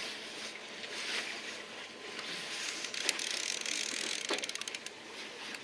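Small baitcasting reel being cranked steadily under the load of a hooked fish, its gears whirring and clicking; a quick run of fine clicks comes about four seconds in.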